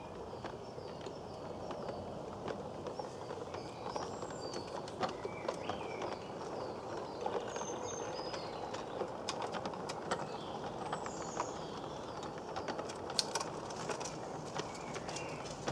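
Garden-scale model train, a battery-powered LGB Stainz locomotive hauling coaches and wagons, rolling along 45 mm gauge track: a steady rumble of wheels with many sharp clicks, busiest in the second half. Small birds chirp over it throughout.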